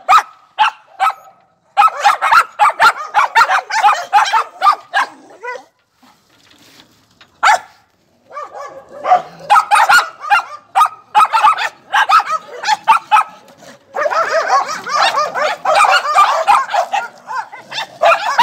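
Dogs barking in fast runs of short barks, with a pause of about two seconds about a third of the way in and denser overlapping barking near the end.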